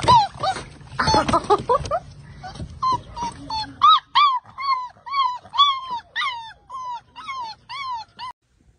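Black Labrador puppy whimpering and yipping in a string of short, high whines, each rising then falling in pitch, coming about two a second over the second half and cutting off suddenly near the end.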